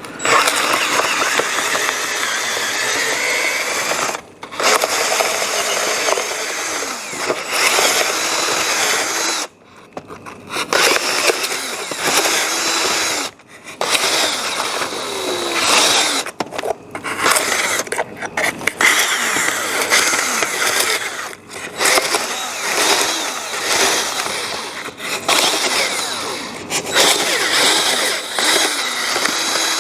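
Electric drill spinning a spade bit into the foam form of a deer mount, running in long bursts with several brief stops as the bit is pushed in and worked around.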